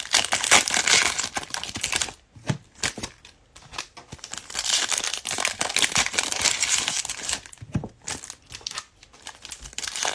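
Plastic foil wrapper of a trading card pack crinkling and tearing as it is handled and opened, in two long spells of crackle with quieter gaps and a few sharp ticks between.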